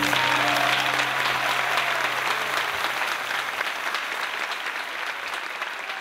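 Audience applauding at the end of the performance, slowly fading. The last low note of the music rings on under the applause for the first three and a half seconds.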